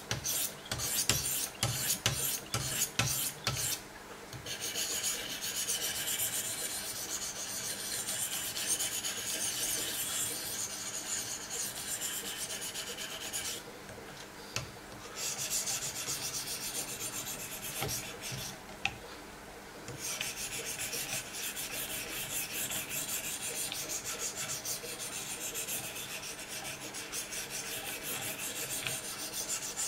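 Wicked Edge diamond sharpening stones stroked along the edge of a clamped Benchmade Nakamura M390 steel blade: a handful of separate short strokes at first, then long runs of fast, continuous scraping, broken by two short pauses.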